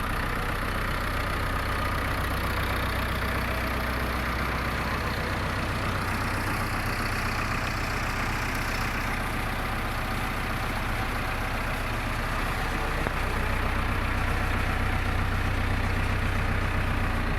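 2012 JCB 3DX backhoe loader's diesel engine idling steadily, getting slightly louder about three-quarters of the way through.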